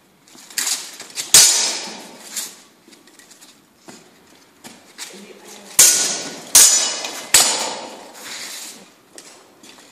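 Steel swords clashing against each other and against plate armour and helmets in full-contact sword fighting. Two flurries of sharp metallic clangs, three strikes starting about half a second in and three more around six to seven and a half seconds in, each ringing and echoing in the large hall.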